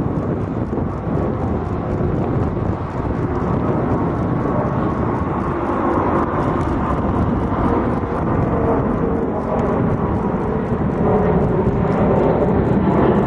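Twin jet engines of a Boeing 777 at takeoff thrust as it lifts off and climbs away: a loud, steady roar with some humming tones in it, a little louder near the end.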